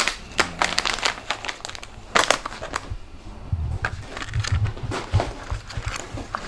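Hard plastic parts of a drone's body being handled and pried apart by hand: irregular clicks and crackles, with a few dull knocks in the second half.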